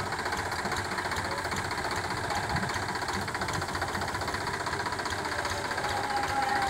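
Diesel engine of a Powertrac tractor running steadily, with a rapid knocking beat, as it works a front loader.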